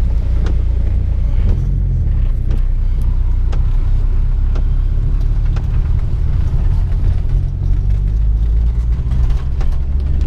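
Steady low rumble of a Volkswagen Golf being driven, road and engine noise, with a few faint scattered clicks.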